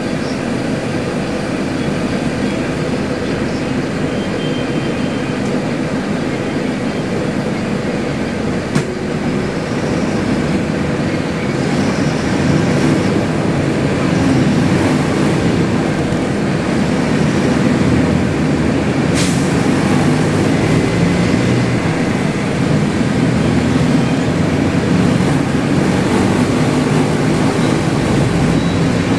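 Mercedes-Benz OF-1721L bus engine running loud, under way, growing louder about eleven seconds in. A single sharp click comes about nine seconds in.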